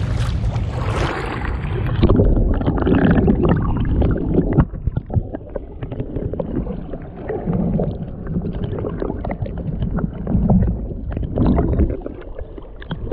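River water sloshing and gurgling around an action camera held at and just under the surface, heard as a low, muffled rumble. About two seconds in the sound goes duller as the camera sinks under the water.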